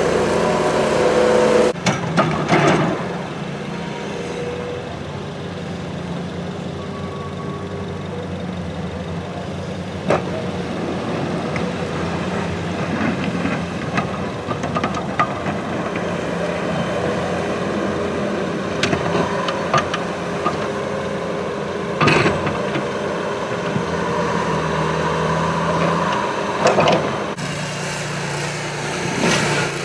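Engine of a skid-steer loader running steadily as it pushes snow with a wide plow blade, with a few sharp clanks and scrapes.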